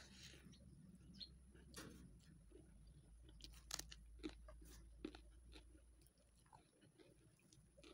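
Faint chewing of rice and fried vegetables eaten by hand, with scattered soft crunches and mouth clicks; a crisper crunch about four seconds in as a raw green vegetable is bitten.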